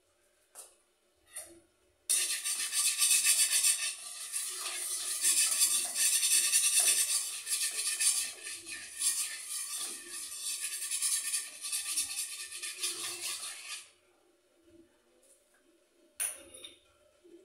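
Food frying in hot oil in a wok, a dense crackling sizzle that starts suddenly about two seconds in and cuts off near the end, with a metal spatula scraping and stirring in the pan. A single sharp metal knock follows shortly after.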